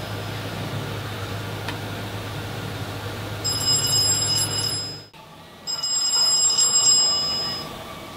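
Mobile phone ringtone: bright, high electronic chiming in two bursts, the first cut off abruptly about five seconds in and the second starting again a moment later. A steady low hum runs underneath until the cut.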